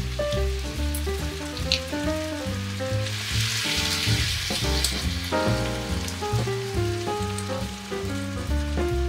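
Food sizzling in a hot frying pan of sausage and pasta, swelling about three to five seconds in as heavy cream is poured in. Background music of short melodic notes plays throughout.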